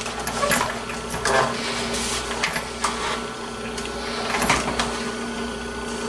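Clicks and knocks of a workbench magnifier lamp's arm and head being swung and positioned over the bench, a few irregular handling sounds, over a steady electrical hum.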